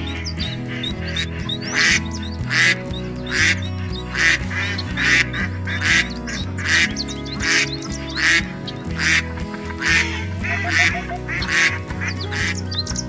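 Duck quacking over and over, about one quack every 0.8 seconds, over steady background music.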